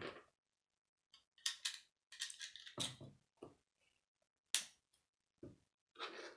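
Plastic Lego bricks clicking and rattling as pieces are picked from a loose pile and pressed onto a model: a handful of short, sharp clicks spread out after a quiet first second.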